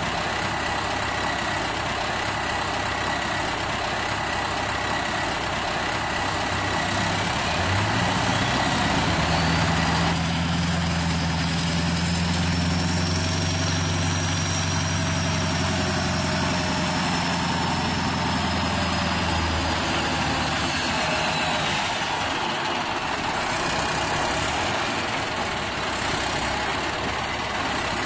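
Diesel truck engine sound from a radio-controlled Scania tractor unit hauling a lowboy trailer. It idles, rises as the rig pulls away and eases back down, with a faint high whine from the drive rising and falling along with it, over a steady hiss.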